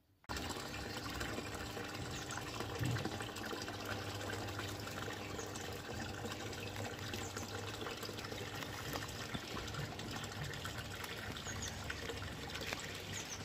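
Water splashing steadily from a garden pond's pump-style water feature into the pond, coming in suddenly at the start.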